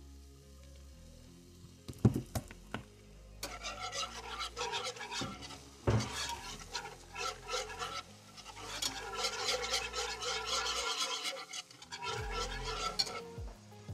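A whisk stirring cream sauce in a nonstick skillet: rapid scraping and clicking against the pan, starting about three seconds in, with a few sharp knocks of the whisk on the pan around two and six seconds in.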